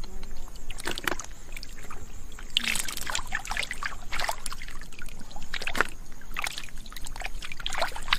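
Hands splashing and sloshing in shallow muddy water, irregular splashes about every second, as small fish are grabbed by hand.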